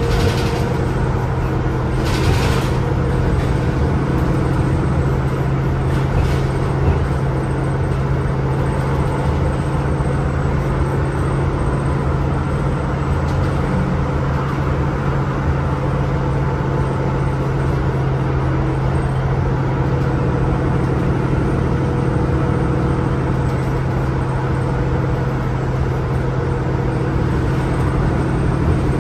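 A NovaBus LFS CNG city bus, heard from inside, running steadily on its Cummins ISL-G 8.9 L six-cylinder natural-gas engine with road noise. Short hisses come at the start and about two seconds in.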